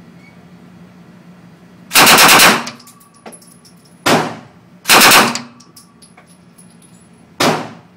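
Rental rifle firing on full auto at an indoor range, the shots echoing off the walls. A burst of rapid shots comes about two seconds in, a short one near four seconds, another burst about five seconds in, and a last short one near the end, after which the gun jams.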